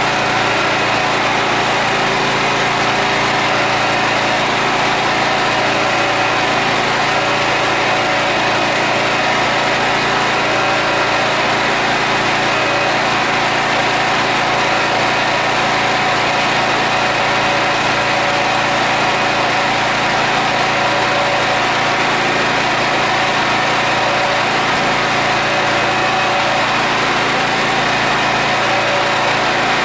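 Harbor Freight Predator 8750 watt inverter generator's gasoline engine running at a steady speed, without changes in pitch or level.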